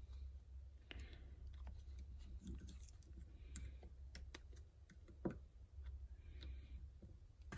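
Faint, scattered clicks and taps of metal multimeter probe tips against the plastic connector of a coolant temperature sensor as they are worked onto its pins, with one sharper click about five seconds in, over a low steady hum.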